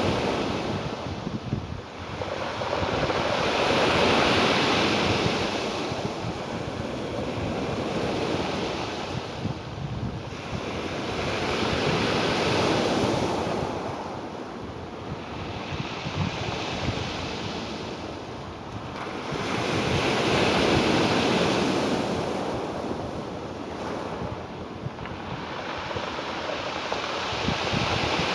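Ocean surf, an even wash of breaking waves that swells and ebbs in slow surges about every eight seconds.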